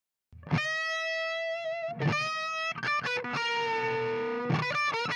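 Electric guitar played through a Carstens Warm Machine 50 W EL34 tube amplifier, starting about half a second in. It plays a slow lead phrase of long singing notes with bends and vibrato.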